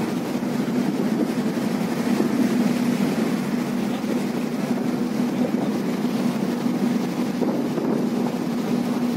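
Ship's engine running with a steady hum while the vessel is under way, with wind noise on the microphone over it.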